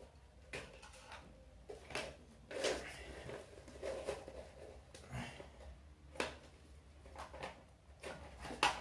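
Scattered light knocks, clicks and rustles of someone rummaging through household items, about one every second, over a steady low hum.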